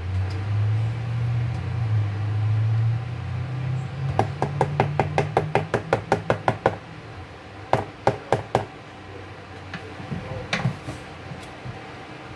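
A metal utensil tapping and knocking against a plastic food container while chicken salad with mayonnaise is stirred: a quick run of about five taps a second around the middle, a few more shortly after, then scattered taps. A low steady hum comes first.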